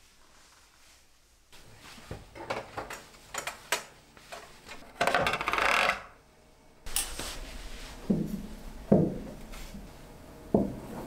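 Kitchen utensils clink and clatter as they are handled, followed by a short rustle. Then steel kitchen knives from a Henckels set are set down one at a time, three sharp metallic clinks that ring briefly.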